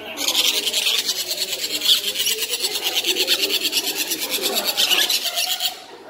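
Young parrot chicks giving a fast, evenly pulsed run of high-pitched begging calls, which cuts off abruptly near the end.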